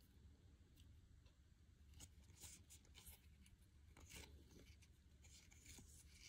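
Near silence, with faint soft ticks and slides of glossy baseball trading cards being flipped through by hand, a card moved every second or so.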